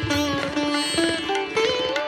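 Instrumental background music: a melody of plucked notes with sliding pitch bends, one rising near the end.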